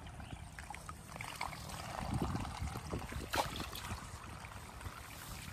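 A fishing rod jerked up from the water, with a sharp swish and splash about three and a half seconds in as the hook and line are yanked out of the canal, over a low steady rumble and small watery clicks.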